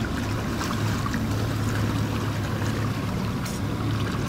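A boat's engine running steadily with a low hum, with water splashing and trickling along the hull.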